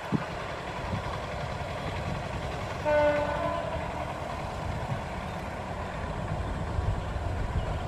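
A passing train's steady rumble, with one short blast of the locomotive horn about three seconds in.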